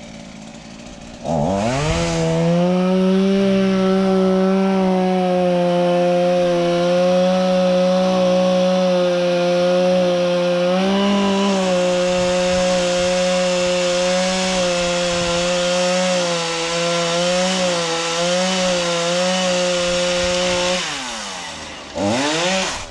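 Two-stroke chainsaw revved up about a second in and held at full throttle for about twenty seconds while cutting a tree, its pitch dipping slightly now and then under load. It drops back near the end, then revs briefly once more.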